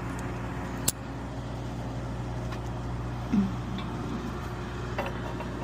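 Truck engine idling steadily, with a sharp click about a second in.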